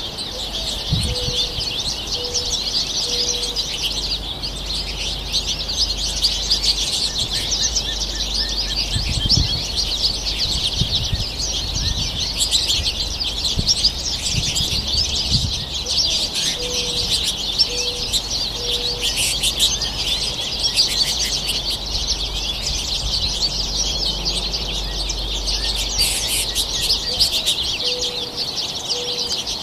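A flock of American goldfinches twittering in a continuous, dense chatter of high chirps. A dove coos low in the background three times, each a short series of about four notes.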